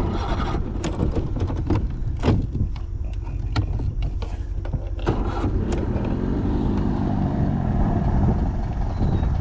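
Outboard boat motor being cranked over without catching: a steady low rumble with a string of knocks in the first half and a humming tone appearing after the middle.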